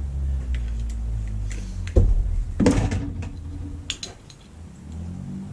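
Handling noise: scattered light clicks and knocks of an object worked in the hands, the sharpest about two and a half seconds in, over a low steady rumble that fades out a little past halfway.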